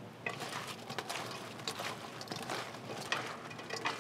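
Two plastic scoops scraping and knocking against a stainless steel bowl as sticky, sauce-coated fried chicken is tossed, a fast irregular clatter of clicks and scrapes.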